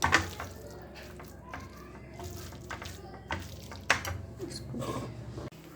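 Thick, wet ground moong dal tikki mixture being mixed in a bowl, with irregular squishing and now and then a sharp click against the bowl.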